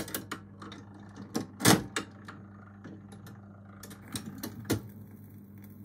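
Pye Black Box record player's automatic changer cycling: a series of mechanical clicks and clunks, the heaviest about two seconds in, as a 78 rpm record drops from the spindle onto the platter and the pickup arm swings over, over a steady low hum.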